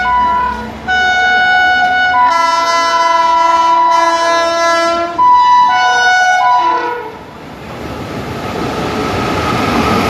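Indian Railways locomotive's multi-tone horn: a short blast, then a long blast of about four seconds whose chord thickens partway through, then more short blasts. After that comes the rushing noise of the express train's coaches passing at speed, growing louder near the end.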